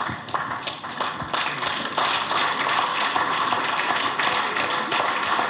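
Audience applauding, a dense patter of clapping that swells about two seconds in.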